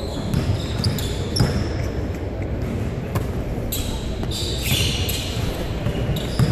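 Basketballs bouncing on a hardwood gym floor: a handful of sharp thuds over the steady background din of a large gym, with brief high squeaks of sneakers on the court.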